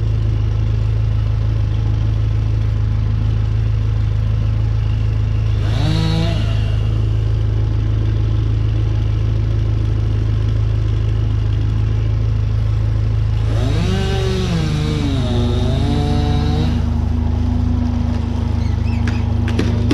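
Engine of a piece of tree-work machinery running steadily with a low hum; twice a higher pitched sound swings up and down briefly, the second time settling into a steady higher tone.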